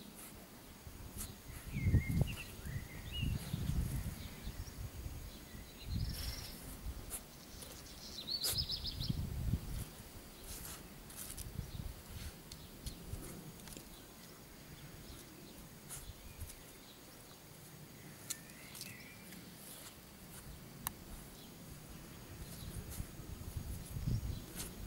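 A dog sniffing and scuffling with its nose pushed into a hole in the undergrowth, in irregular bursts, while small birds chirp a few times in the background.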